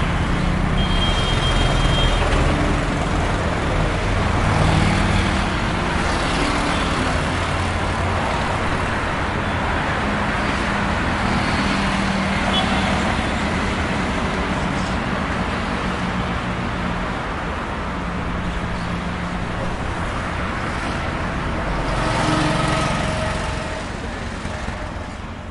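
Busy street traffic: a steady, loud din of passing vehicle engines, with a few short higher tones about a second in and again near the end.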